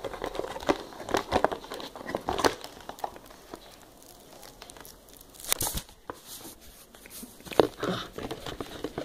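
Stiff plastic packaging crinkling and clicking in irregular bursts as hands pull a webcam and its cable from a plastic tray, with a sharp loud crackle about five and a half seconds in.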